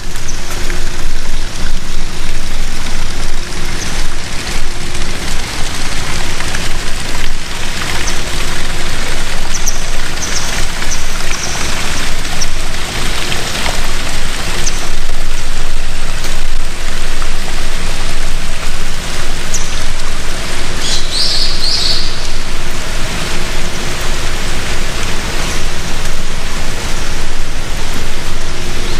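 Loud, steady rush of fast-flowing river water and falls.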